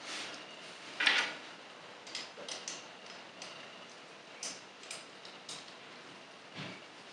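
Small hard-plastic toy parts clicking and knocking as a Transformers figure's pegged-together guns and tiny Titan Master figure are fitted together. The sharpest click comes about a second in, then a few lighter clicks, and a duller knock near the end.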